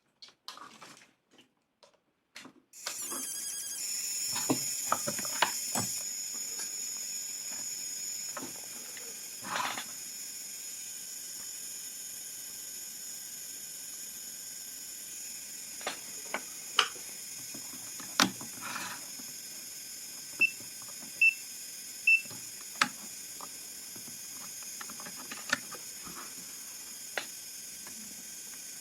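Switching power-supply board of an OKI 40-inch LCD TV, just connected to mains, giving a steady high-pitched hiss and whine that starts suddenly about three seconds in: the strange noise the set is faulted for. Sharp clicks and taps sound over it, with three short beeps about twenty seconds in.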